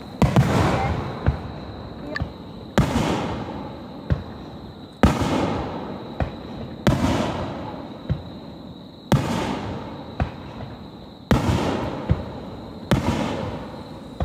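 Firework shells bursting one after another in a display, a loud bang every second or two with some sharper, smaller cracks in between, each bang dying away in a long echo.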